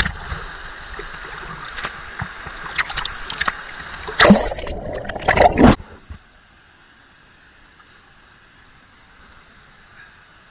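Waterfall water pouring and splashing onto the camera, loud and rushing, with hard splashes about four and five and a half seconds in. It cuts off at about six seconds to a faint, steady rush of the falls heard from a distance.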